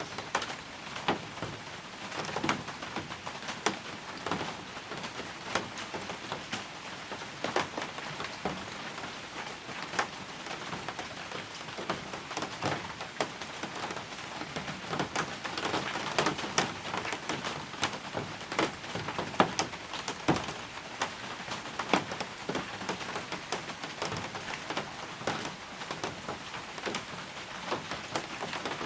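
Steady rain on a balcony: an even hiss of falling rain with many close, irregular drips tapping on hard surfaces.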